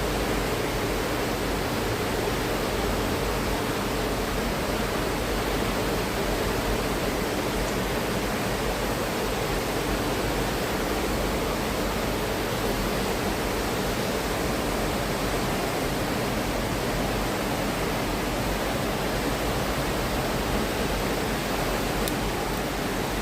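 Flowing water rushing steadily, a constant even noise that does not change.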